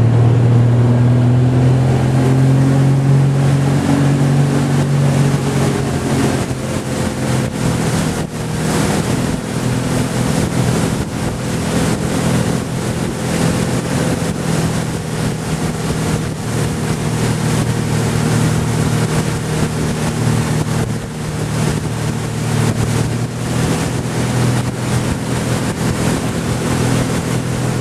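Motorboat engine pulling a hydrofoil rider up out of the water, its pitch rising a little over the first few seconds and then running steadily at towing speed. Water rushing and wind buffeting the microphone run under it.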